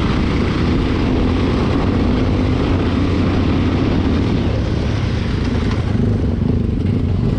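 Motorcycle engine running at a steady pitch while the bike is ridden, with a dense rush of noise underneath.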